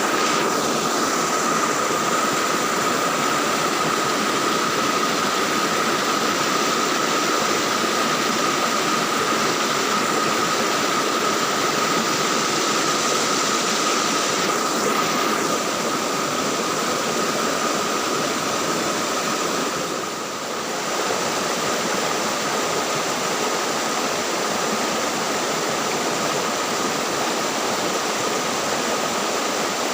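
Steady rushing of flowing water, with a thin, steady high tone running over it.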